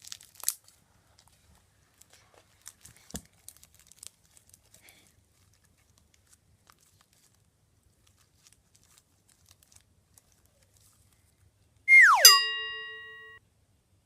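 Faint, sparse crackles and little pops of slime being handled, then a loud tone that drops steeply in pitch, holds steady and cuts off abruptly about a second and a half later.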